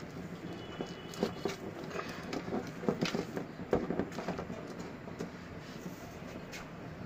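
Silicone spatula stirring thick caramel in a steel pot, giving irregular soft knocks and scrapes against the pan, over a steady low hum.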